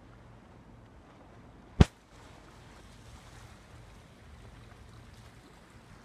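Faint, steady wash of calm sea lapping at a rocky shore, with one sharp, loud knock a little under two seconds in.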